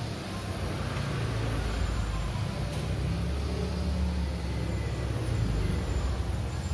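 Low rumble of road traffic: a motor vehicle engine running steadily and growing slightly louder.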